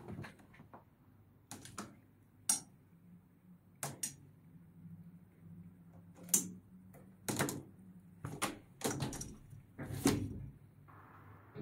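A cat's claws catching on a window insect screen as it climbs and hangs on the mesh, the screen and its frame giving irregular sharp clicks and knocks.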